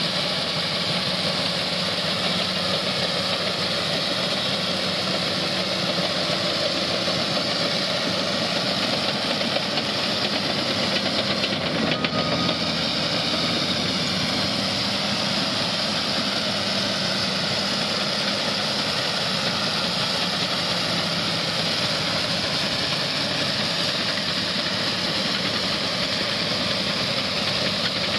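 Caterpillar D6T crawler dozer's diesel engine running steadily as the dozer tracks through floodwater, over a constant rushing noise from the churned water.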